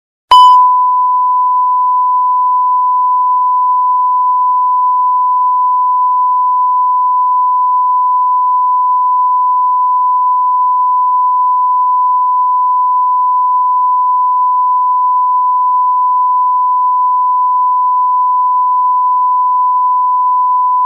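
A loud, continuous electronic beep at one unchanging pitch, like a test tone or a flatline signal. It starts with a click just after the beginning and holds steady without any variation.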